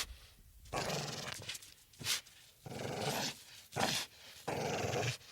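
Pit bull dog snorting and growling: three short, sharp snorts, each followed by a rough growl lasting most of a second.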